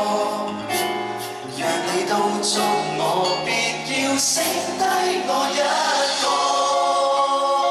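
Live band playing a pop song, with a voice singing over drums and cymbals and long held notes.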